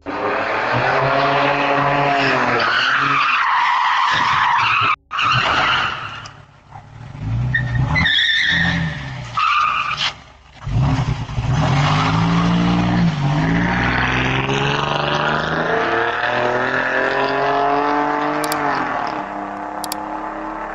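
Car engine revving hard as it accelerates, its pitch climbing and then dropping back several times, with tyres skidding.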